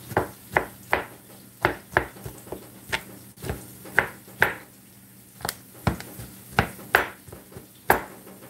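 Chef's knife chopping cooked chicken on a plastic cutting board: sharp, uneven knocks about two a second, with a short pause about halfway through.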